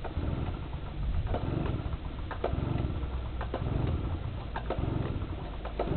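Small two-stroke generator engine being pull-started from cold: several pulls of the recoil starter, each a low rumble with sharp clicks, before the engine catches.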